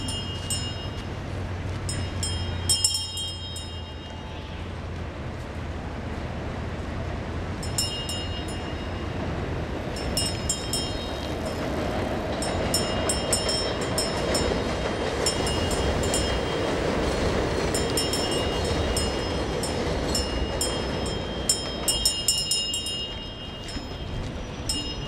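Elevated subway train passing overhead on the steel structure, a broad rumble that swells for about eight seconds and fades again near the end, with high metallic ringing and clicking from the wheels on the rails.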